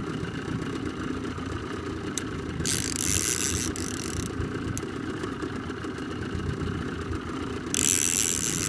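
Boat engine running steadily, with two louder bursts of hiss, about three seconds in and again near the end.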